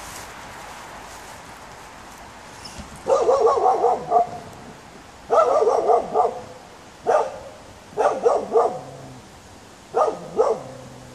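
A dog barking at a startling human-shaped dummy, a wary alarm bark: a quick run of barks starts about three seconds in, another run follows about two seconds later, then shorter single and double barks.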